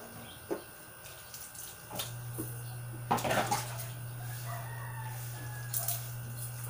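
Water splashing as a plastic dipper scoops from a basin and is poured out during a bucket bath, the loudest splash about three seconds in. A rooster crows in the background, and a low steady hum sets in about two seconds in.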